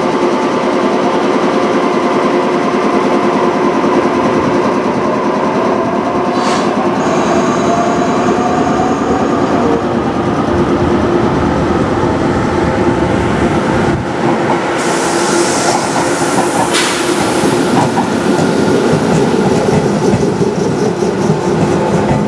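JR Kyushu 415 series electric multiple unit standing at the platform with a steady equipment hum, then a hiss of air about two-thirds of the way through as it gets under way. Near the end the train pulls away, its wheels starting to click over the rail joints.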